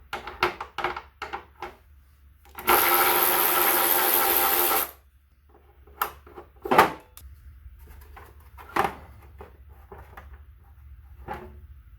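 A small handheld power tool's motor runs steadily for about two seconds, driving out an 8mm bolt. Before it comes a quick run of sharp clicks, and after it a few separate knocks of tools and parts.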